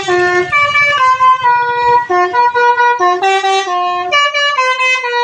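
Bus telolet horn, a multi-tone Basuri musical horn, playing a quick tune of stepped notes, each held a fraction of a second, over a faint low rumble.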